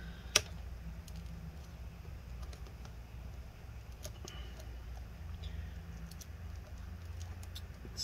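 Faint scratching and small clicks of a small tool picking apart two layers of adhesive tape over a laptop's LCD cable connector, with one sharper click near the start, over a low steady hum.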